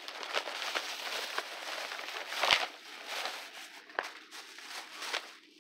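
Plastic shopping bag rustling and crinkling as it is rummaged through and handled, with a louder thump about halfway through.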